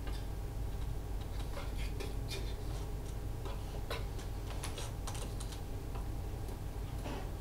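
Irregular light clicks and taps over a steady low room hum.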